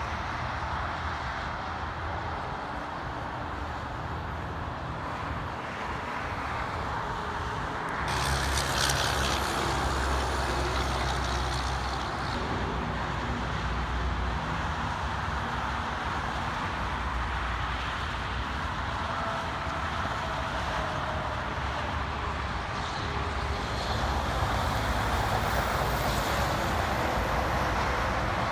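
Steady highway traffic: cars and diesel semi trucks passing on a multi-lane highway. It gets louder with a sudden hiss about eight seconds in, and again near the end as a tractor-trailer passes close.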